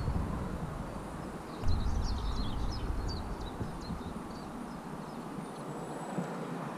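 Wind rumbling on the microphone of a moving bicycle, dying away about four seconds in, with a few faint bird chirps over it.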